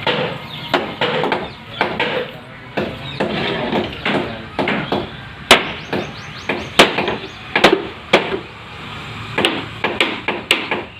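A string of sharp, irregular hammer blows, the loudest ones in the second half.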